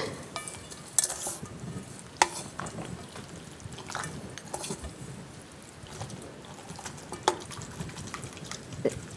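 Chopsticks stirring and mixing cold noodles in spicy broth in a metal bowl, a soft liquid swishing broken by scattered sharp clicks of the chopsticks against the bowl.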